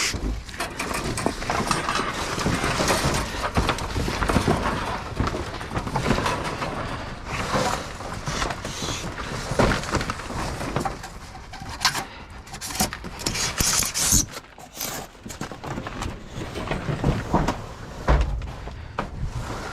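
Garage door panels being shifted around inside a metal dumpster: irregular clattering, knocking and scraping, with several louder bangs.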